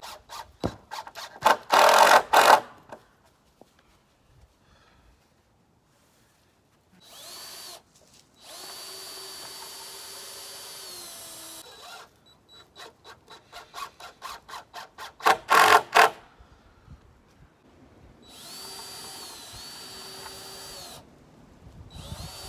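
Cordless drill driving screws into the wooden frame: several runs of steady motor whine, each rising as the trigger is pulled and falling away as it is let go. Twice, about two seconds in and again around fifteen seconds, there is a run of sharp clicks that speeds up and grows loud.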